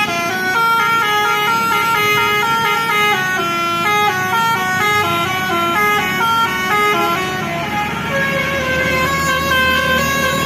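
Bus 'basuri' musical horn playing a tune: a continuous run of quick horn notes stepping up and down in pitch.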